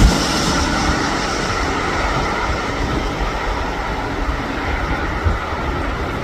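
Rolls-Royce Trent XWB engines of an Airbus A350-941 taking off and climbing away: a steady, broad jet roar and rumble. The level drops suddenly at the start and then holds.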